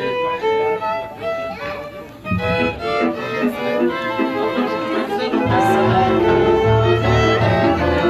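Live violin playing a melody, joined by a double bass whose low notes come in about two seconds in and grow stronger past the halfway point.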